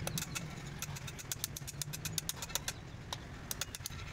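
An engine running with a steady low hum that fades about two and a half seconds in, with many sharp irregular clicks over it.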